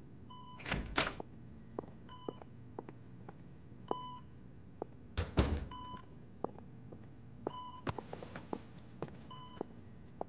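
Bedside patient monitor giving a short, even beep about every 1.8 seconds. Footsteps and light clicks come between the beeps, with two louder thumps about a second in and just past five seconds.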